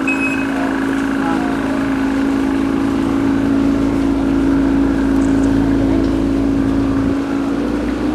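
Boat motor running steadily, a continuous low drone whose pitch rises a little near the end.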